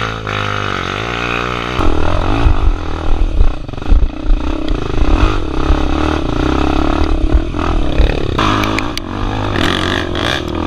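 Honda Tornado trail bike, bored out to 293 cc, running its single-cylinder four-stroke engine on a rough dirt trail. For about two seconds it runs at low revs. Then it gets louder as the throttle is opened and closed again and again, with knocks and clatter from the bike over the ruts.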